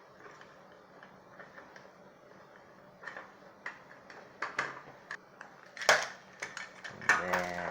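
Small tools and cable being handled on a workbench: faint rustling, then light clicks and taps from about three seconds in, the sharpest near six seconds. A brief hum of a voice comes near the end.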